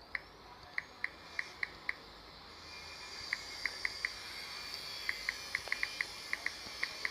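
Phone touchscreen keyboard clicks: short, high ticks coming irregularly in quick runs with pauses, as someone types a message. A faint hiss comes in about halfway through.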